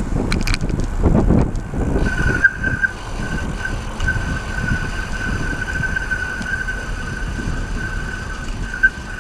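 Road traffic and wind rushing past while riding a bicycle along a busy road, with a louder swell about a second in. A steady thin high-pitched whine comes in about two seconds in and holds.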